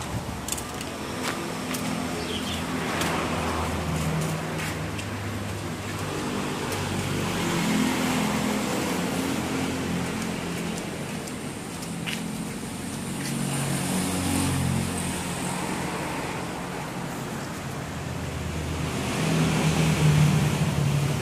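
Street traffic: vehicle engines running and passing, growing louder near the end.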